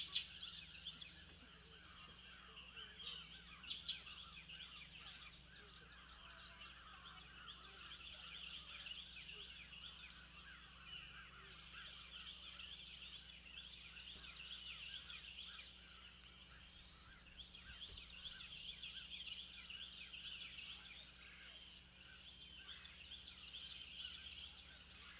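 Faint, dense chatter of many birds calling at once, with a few louder calls in the first four seconds, over a steady low hum.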